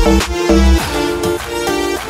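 Background music: an electronic track with a steady beat, its heavy bass dropping out a little under a second in.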